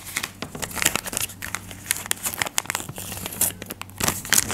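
Paper crinkling and rustling in a series of short, irregular crackles as a hand-drawn paper jewellery-box cut-out is handled and its flap opened.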